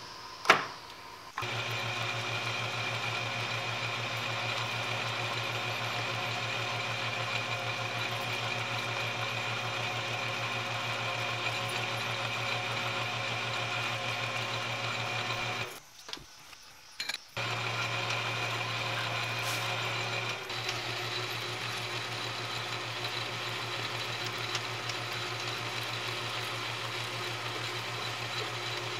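A sharp knock about half a second in as the drill chuck is seated in the tailstock, then a South Bend Heavy 10 metal lathe running steadily with a steady hum and high whine while a twist drill in the tailstock chuck bores into a metal spacer. The running sound breaks off for about a second and a half past the middle, then carries on.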